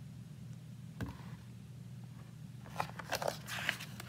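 Pages of a hardcover picture book being handled and turned: a single click about a second in, then a run of crackly paper rustles and clicks toward the end, over a steady low hum.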